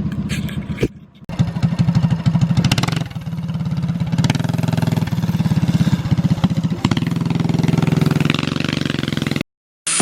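Mini bike's small petrol engine running, its speed rising and falling a few times. It drops out briefly about a second in and stops near the end.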